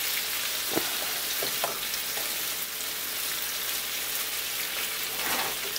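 Salmon fillets sizzling steadily in a red wine and garlic sauce in a nonstick frying pan, with a few light clicks as metal tongs turn the fish.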